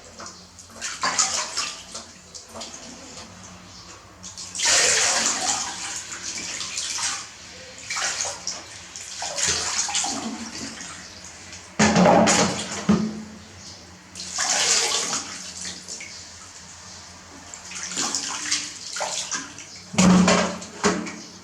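Bath water splashing and pouring in irregular bursts a few seconds apart while a baby monkey is washed.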